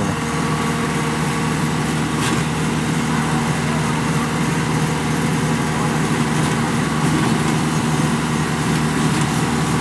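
Kubota DC-105X combine harvester's diesel engine running steadily at close range, its pitch and level unchanging.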